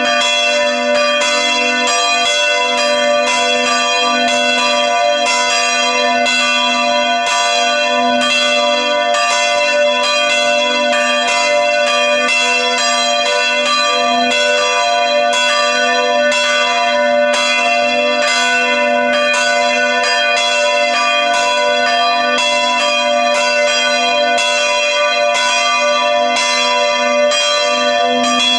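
Church tower bells ringing continuously and loudly, strikes following one another in quick, even succession so the tones overlap into a sustained peal.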